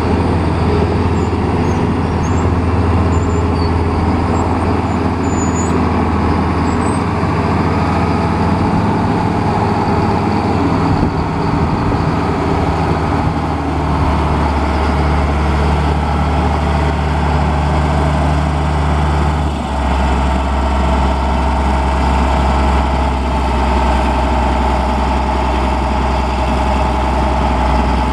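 Caterpillar 140G motor grader's six-cylinder diesel engine running steadily as the grader drives and turns on gravel. Its low engine note steps down to a deeper pitch about two-thirds of the way through.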